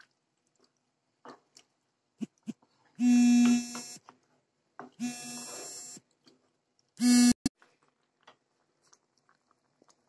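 An electronic buzzer sounds three times: two buzzes of about a second each, two seconds apart, then a short one. Between them come faint scrapes of a wooden spoon stirring a thick sauce in a frying pan.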